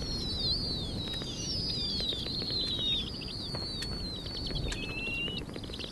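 Snowy owl owlets calling for food: many thin, high squealing calls that slide down in pitch, some breaking into quick chattering trills, over a low steady rumble.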